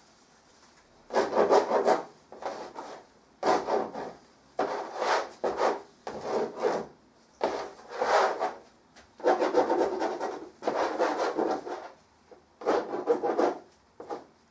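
Rough rubbing strokes of a brush and hand working paint across a large painting surface. There are about a dozen strokes, each half a second to a second long, with short pauses between them.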